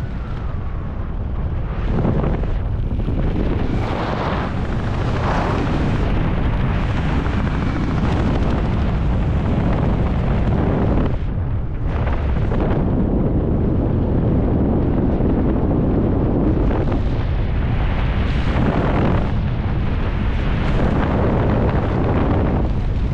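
Wind buffeting a helmet camera's microphone during parachute descent. It makes a loud, heavy low rumble that swells and eases every few seconds.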